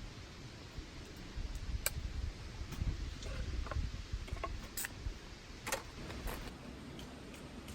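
Scattered, irregular sharp clicks and ticks, about ten in all, over a steady low rumble.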